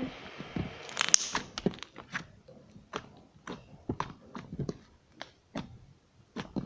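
Glossy glue-based slime being pressed and stretched by hand, trapped air bubbles popping in a string of sharp, irregular wet clicks and pops, quickest in the first couple of seconds.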